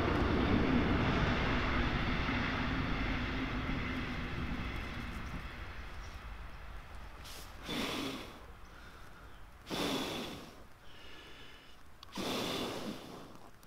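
A low engine drone fades away over the first few seconds. Then come three long puffs of breath, about two seconds apart, blowing into campfire embers to rekindle the flame.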